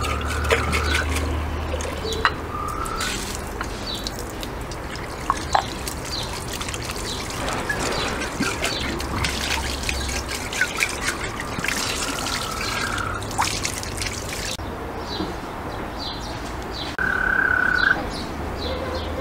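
Water trickling from an outdoor tap into a white pot as it is rinsed by hand, with birds chirping.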